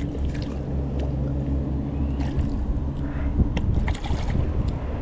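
An engine running steadily with a low hum that shifts slightly about halfway through, with scattered light clicks and knocks on top.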